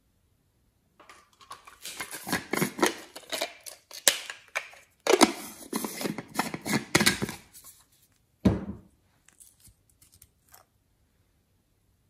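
A small metal spatula scraping and clicking against a plastic strawberry-shaped container: a dense run of crackly scrapes for several seconds, then a single dull knock and a few light ticks.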